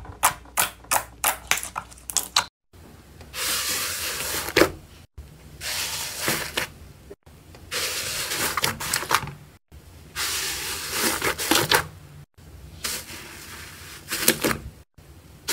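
Slime being handled in a run of short clips. First comes a quick series of sharp clicks and pops, about four a second. Then several stretches of crackling, squishing noise follow, each about two seconds long and each cut off abruptly.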